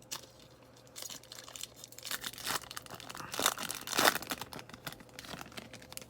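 A baseball card pack's wrapper being torn open and crinkled by hand, an irregular crackling that is loudest around the middle.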